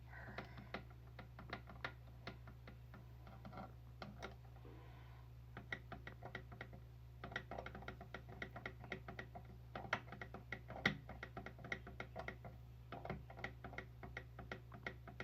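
Alarm clock's setting controls clicking repeatedly as the alarm time is set: faint, irregular clicks, sparse at first, then coming fast from about five seconds in, over a steady low hum.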